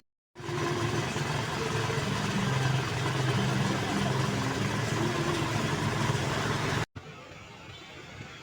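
A large bus's engine running with a steady low hum, a pitched sound that shifts slightly in places. It starts just after a brief dead gap and cuts off abruptly near the end to a quieter background.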